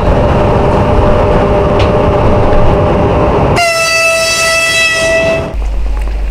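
Rumble of a passenger train running on the rails, heard from inside the carriage. About three and a half seconds in it cuts abruptly to one steady train horn blast lasting about two seconds, followed by a low hum.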